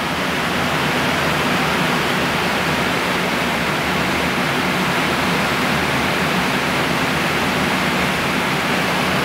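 Steady airflow and air-conditioning noise on the flight deck of a Boeing 777-300ER in cruise: an even, unbroken hiss with a low hum beneath.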